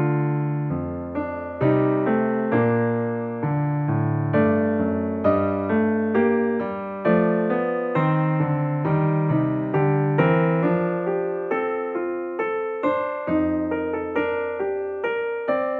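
Background music: a gentle tune on a keyboard instrument, notes struck about twice a second and each fading away.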